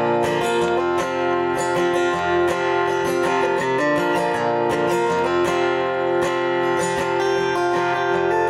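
Acoustic guitar playing the instrumental introduction to a folk song, with steady plucked and strummed chords before any singing comes in.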